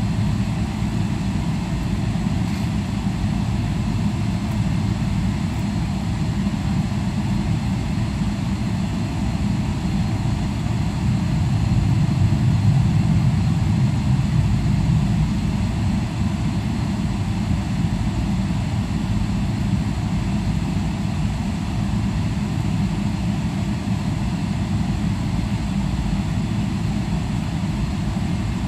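Steady cabin noise inside a Boeing 777-300ER taxiing, its GE90 engines running at low taxi power as a deep, even rumble. It gets a little louder around the middle, then settles back.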